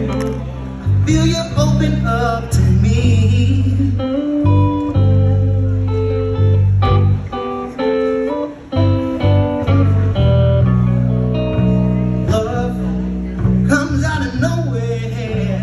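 Live blues band playing: an electric guitar plays lead lines with bent, wavering notes over a loud bass and drums.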